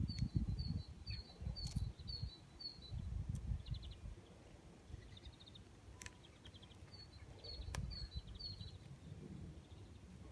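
A small bird calling in two runs of short, quick high chirps, about three a second. Under it, fingers fumble with a rubber band and duct tape on a wooden table, with a few sharp clicks.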